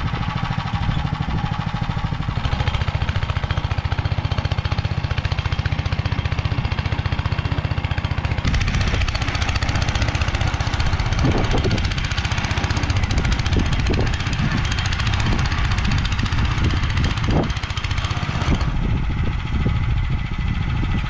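Motor Sich walk-behind tractor's single-cylinder engine running steadily under load while its rotary tiller churns soil. Scattered sharp knocks come in the second half.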